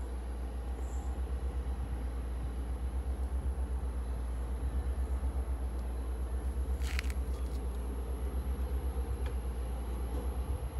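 A low, steady mechanical throb pulsing several times a second, like an engine idling, with one short click about seven seconds in.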